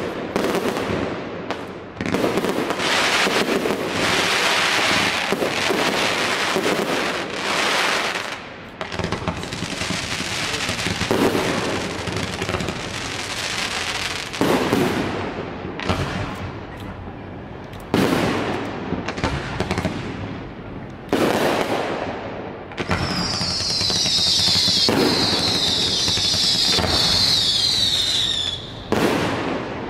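Aerial fireworks display: shells bursting with sudden bangs every few seconds, with hiss and crackle between them. Near the end, a dense stretch of high, falling whistles lasts about six seconds.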